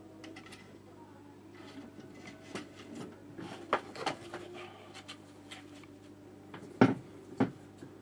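Hands handling a sheet of watercolour paper and the metal clip holding it to a board: paper rustling as it is pulled tight, with several sharp clicks and knocks as it is clipped back on, the two loudest about half a second apart near the end.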